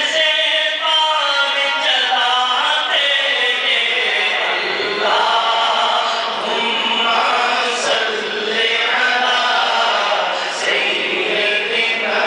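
A man singing an Urdu naat unaccompanied into a microphone: a continuous, melodic devotional chant with no instruments.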